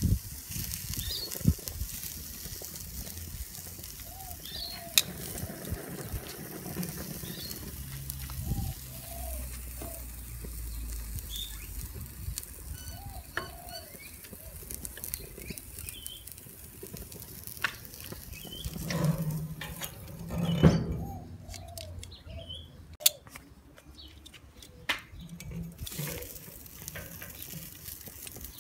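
Sausages sizzling on a gas grill, a steady hiss that dies away about three quarters of the way through. Metal tongs click now and then against the grate, and birds chirp in the background.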